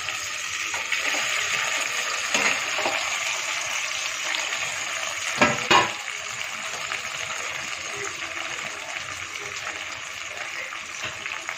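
Hot oil sizzling steadily in a steel pot as pieces of steamed bottle-gourd muthiya fry with onions. Two sharp knocks come about halfway through.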